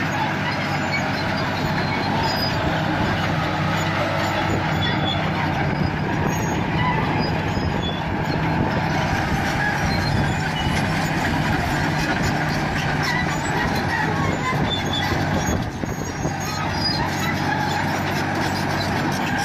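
Large engine running steadily, a constant low hum with a dense rushing noise over it.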